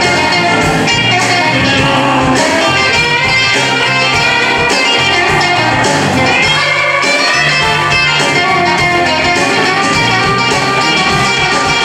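Live blues band playing: electric guitar over electric bass and a drum kit with a steady beat.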